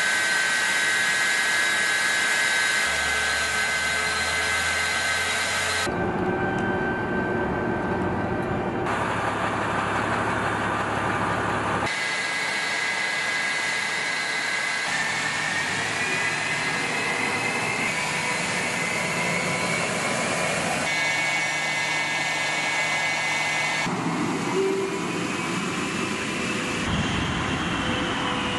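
Su-35 fighters' jet engines whining and rushing on the ground at idle and taxi, heard as a string of short clips cut together, so the pitch and tone jump every few seconds. A whine rises slowly around the middle and again near the end.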